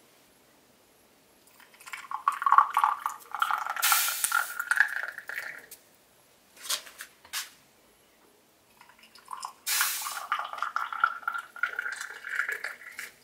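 Tea and hot water poured from a samovar tap and a small teapot into a small glass tea cup, twice. The pitch rises as each glass fills, with a couple of light clinks between the two pours.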